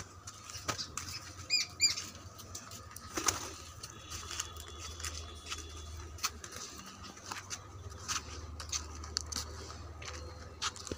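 Footsteps of someone walking on a brick-paved path, making irregular light clicks and scuffs, with a couple of short bird chirps about two seconds in.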